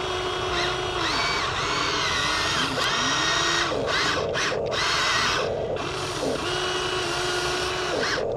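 Huina 1593 remote-control excavator's electric motors whining as it works its boom, arm and bucket and turns on its tracks. The pitch rises and falls as each movement starts and stops, with a few brief breaks.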